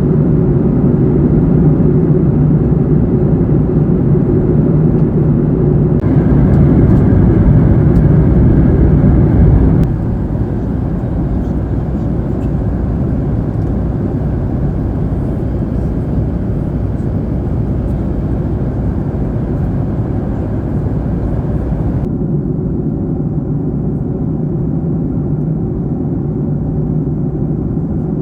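Steady cabin noise of a Boeing 737 MAX 8 in flight, the rush of its CFM LEAP-1B engines and the airflow. The level and tone change abruptly about six, ten and twenty-two seconds in, dropping noticeably at the ten-second change.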